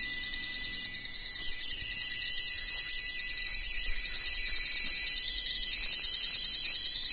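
A steady high-pitched electronic whine with a hiss over it, from the running high-voltage coil and inverter setup.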